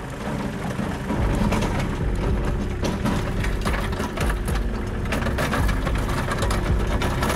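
Tractor engine running while a box blade with its scarifiers lowered drags over packed snow and ice, a dense clatter of scraping and clicking on top of the engine. It gets louder about a second in.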